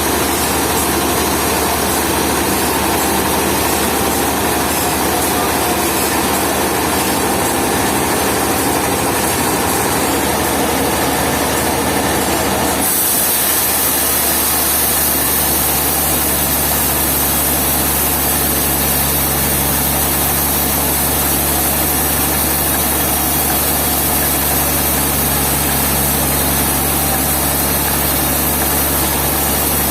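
Heavy machinery engine running steadily. Its sound changes abruptly about 13 seconds in, then settles into a steady low hum.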